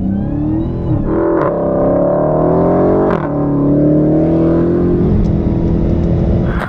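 Dodge Challenger Hellcat Redeye's 6.2-litre supercharged Hemi V8 at full throttle on a standing-start run. The pitch climbs steadily and drops sharply at upshifts about one and three seconds in, then holds steadier near the end.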